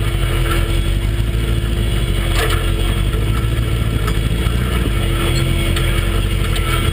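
Off-road buggy's engine running steadily as the buggy drives over a rocky trail, heard from inside the open cab, with a knock about two and a half seconds in.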